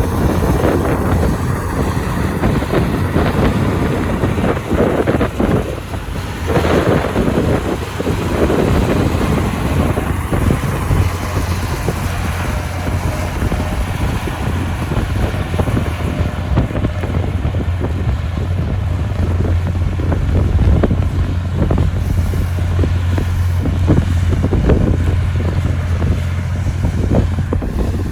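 Heavy diesel earthmoving machine running steadily with a low drone, with wind buffeting the microphone.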